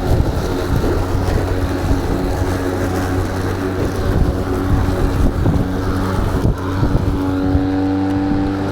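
EGO Power+ battery lawn mower running, its electric motor and spinning blade giving a steady hum over a rough low rumble; one tone of the hum grows stronger near the end.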